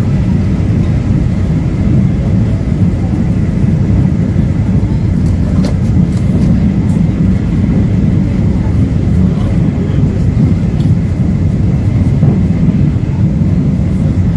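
Steady low rumble of an SGR electric passenger train running at speed, heard from inside the carriage, with a few faint clicks about halfway through.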